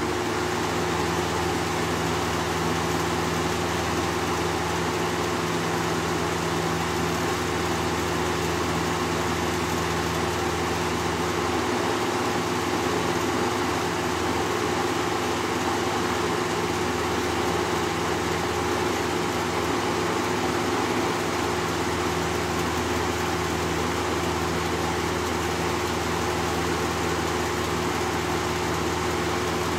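1986 Lakewood 20-inch box fan (model P-223) running steadily: a motor hum with a few steady tones under an even rush of air from the blades. The motor is mechanically near perfect.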